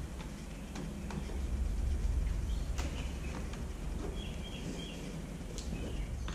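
Short high bird chirps, twice, over a steady low rumble, with faint clicks and light rubbing from a microfiber cloth being wiped over a motorcycle's painted fuel tank.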